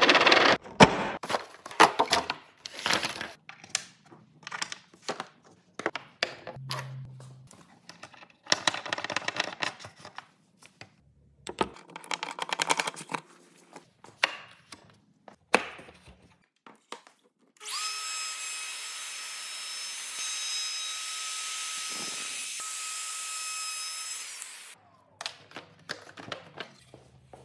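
Knocks, clicks and rattles of plastic-and-metal quick clamps and a round wooden board being handled and fitted into the dog holes of a perforated work table. Partway through, a steady motor sound with a high whine starts abruptly, runs about seven seconds and cuts off.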